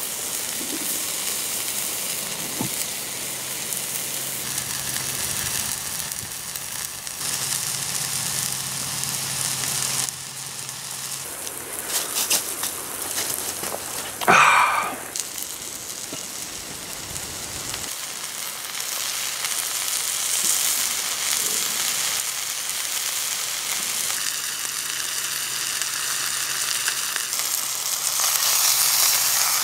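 Steak sizzling in a cast-iron skillet over a campfire: a steady frying hiss, with a few sharp crackles and one brief louder burst about halfway through.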